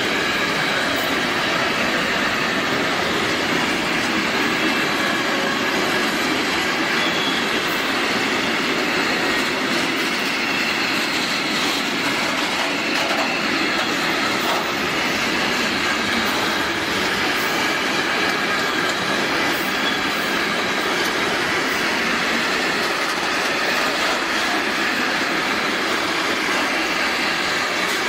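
Container wagons of a long freight train rolling past close by: a steady rumble and rattle of steel wheels on the rails, with wheelsets clicking over rail joints and a thin, high wheel squeal above.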